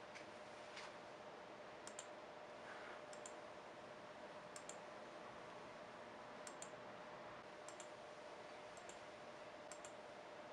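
Faint computer clicks while a laptop is browsed: about seven quick double clicks, each a press and release, spaced a second or two apart, over a low steady hum and hiss.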